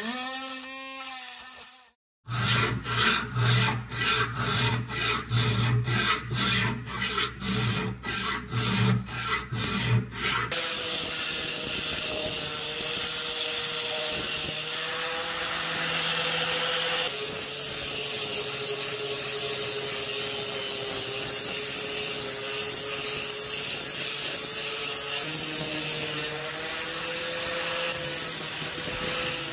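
Angle grinder grinding the rusty steel blade of an antique tobacco cutter to sharpen it, a steady grinding hiss with a held tone that shifts slightly now and then over the last two-thirds. Before it, a rotary tool's wire brush on cast iron winds down, then after a short gap comes a run of loud rhythmic strokes, about two a second.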